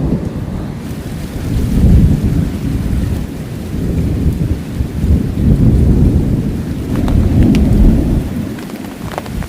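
Thunder rolling in long deep rumbles that swell and fade several times, over steady heavy rain.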